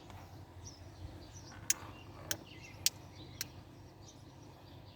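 Four sharp clicks in a row, about half a second apart, in the middle of the stretch, over faint birds chirping in the background.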